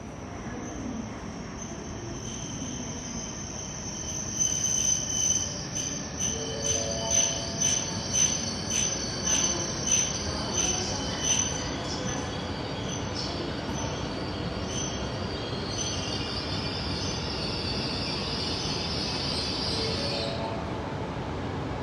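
Train rolling along the track with a steady high wheel squeal and a regular beat of about two thumps a second from the wheels over the rail joints. A high hiss follows and cuts off suddenly near the end.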